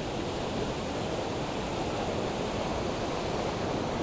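Steady rushing noise of rough ocean surf.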